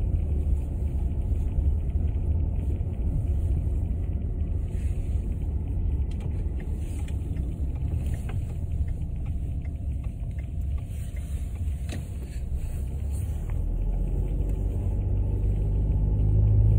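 Low, steady rumble of a car driving slowly, heard from inside the cabin. It eases a little midway and grows louder again near the end.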